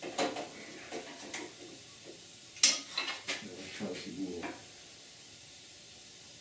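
Metal-on-metal clicks, knocks and clinks as a small steel piece held in locking pliers is shifted and set up on a drill press table, the sharpest click about two and a half seconds in; the clatter stops after about four and a half seconds.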